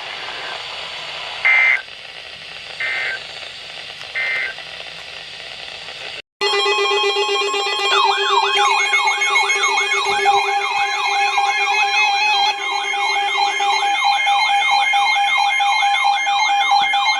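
Weather-radio static hiss with three short electronic beeps about a second and a half apart. After a sudden cut comes an electronic emergency alert tone: a siren-like rising warble repeating about three times a second over steady pitched tones.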